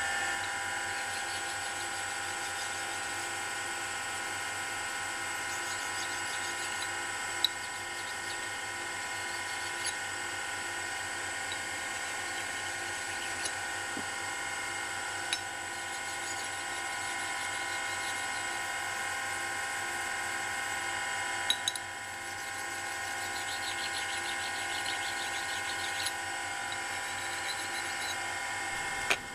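Surface grinder motor running with a steady whine. A few sharp clicks come from steel clamp jaws being handled and set down.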